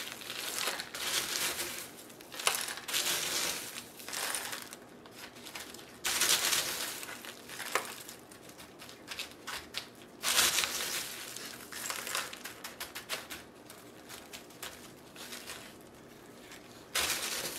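Hands scooping and pressing a coarse orchid potting mix of bark chips and small pebbles in an aluminium foil tray, making irregular crunching and rustling. There are louder spells about six and ten seconds in.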